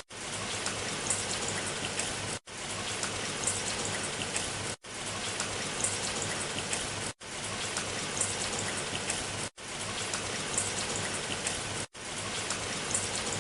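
Steady rain with individual drops pattering, cutting out for a split second about every two and a half seconds, as if a short recording were looped.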